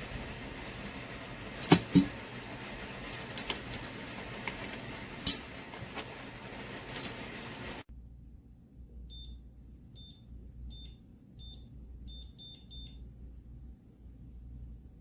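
Clicks and knocks of the pistol safe being handled, then, after the background noise drops away suddenly, a run of about seven short high electronic beeps, evenly spaced at first and then quicker: the safe's keypad beeping at each keypress as a code is entered.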